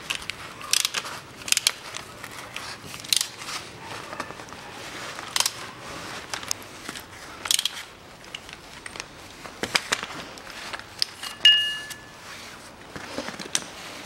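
Ratchet clicking and metal-on-metal clinks as a gear puller's screw is wound in to draw the worn rear bearing off a manual gearbox input shaft. Irregular sharp clicks throughout, with a short bright metallic ring, the loudest sound, about eleven seconds in.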